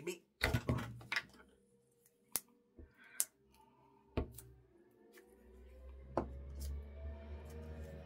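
Glue stick rubbed over a strip of washi tape on paper, with scattered sharp clicks and taps as the stick and paper are handled. Soft background music comes in about five seconds in.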